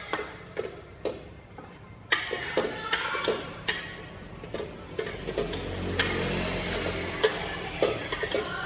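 Cooking chopsticks clicking and scraping against a metal wok and a plate while stir-fried greens are lifted out: a string of irregular sharp taps that come thicker from about two seconds in.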